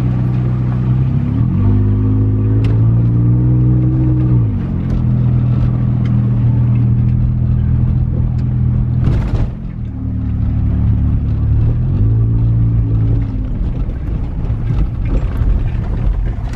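2019 Toyota Highlander's engine and tyres heard from inside the cabin on a gravel dirt road. The engine note climbs twice as the car accelerates, each time easing back down after a few seconds. A single knock comes about nine seconds in.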